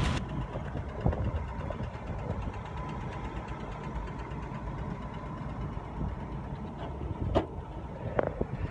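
Wind buffeting the phone's microphone on an open mountain summit: a low, uneven rumble, with a light tap about seven seconds in.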